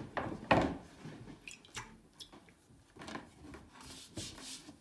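A wet round brush rubbing and squishing over the rind of an alpine cheese wheel as it is smeared, the routine daily rind care during ripening, with small clicks of handling. About half a second in there is one sharp knock as the wheel is handled on the wooden board.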